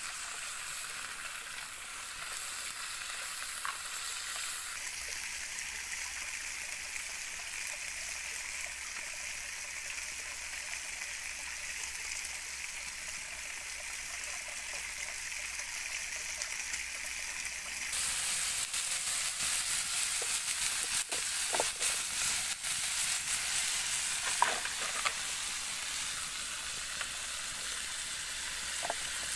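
Meat frying in a pan over a wood fire, a steady sizzle that turns louder and brighter about two-thirds of the way in, with scattered clicks after that.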